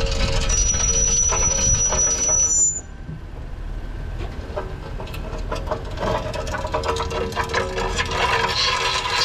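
Rear disc brake on a 2024 Acura MDX making an irregular scraping, clicking noise on the move, with a thin high squeal that cuts off suddenly about a third of the way in. The owner suspects a stone caught in the brake.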